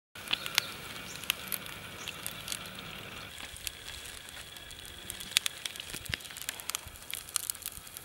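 A sugarcane stalk being twisted and wrung by hand to squeeze out its juice. Its fibres crackle and tick irregularly over a faint steady hiss.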